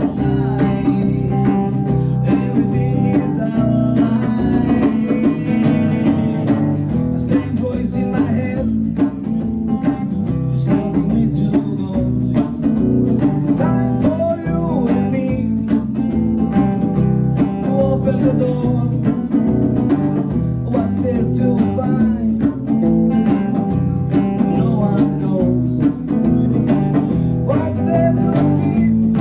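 Live band playing a country-blues style song on guitar, bass guitar and drum kit, with a steady beat and a prominent bass line.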